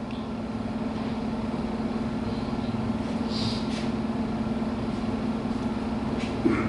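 A steady low hum runs under faint background noise, with a couple of brief soft noises.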